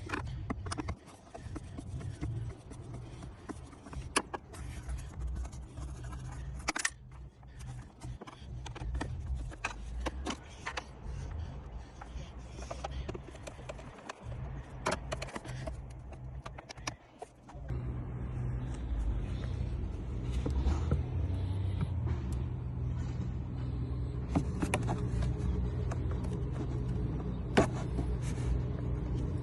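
Car engine running steadily, with scattered sharp clicks and scrapes over it; the engine hum becomes louder and steadier a little past halfway.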